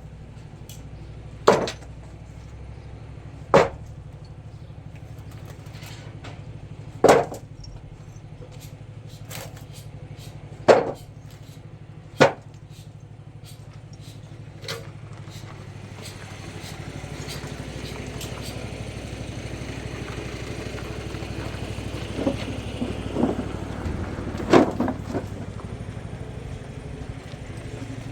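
Sharp single blows struck every couple of seconds in the first half, over a steady low hum; from about halfway a noisy hiss builds, with a quick run of lighter knocks near the end.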